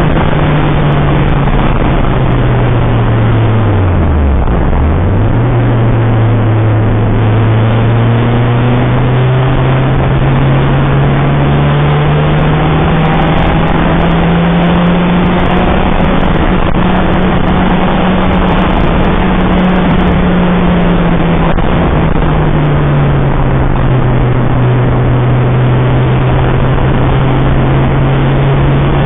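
Citroën Saxo VTR's four-cylinder engine running at speed on track. The revs drop sharply about four seconds in, recover and climb slowly, then fall back again a little past the twenty-second mark. A heavy hiss of wind and wet-road noise runs under the engine throughout.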